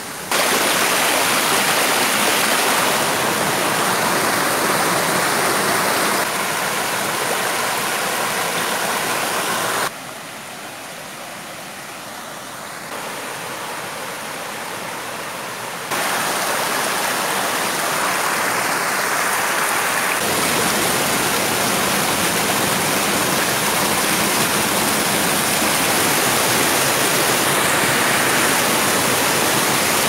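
Water rushing and splashing down a shallow cascade over a flat rock slab, a steady rush that drops noticeably quieter for several seconds in the middle, then comes back up.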